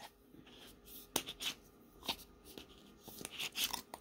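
Faint scattered clicks and light rustling of a small plastic jar of loose nail glitter being handled, with a quicker cluster of clicks near the end.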